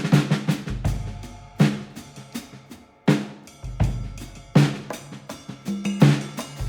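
Background music driven by a drum kit: heavy bass drum and snare hits with cymbal crashes over a sustained low bass part.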